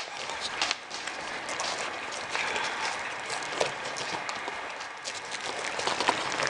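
A litter of puppies eating minced meat together from one plate: a busy, continuous run of small smacking, licking and clicking sounds.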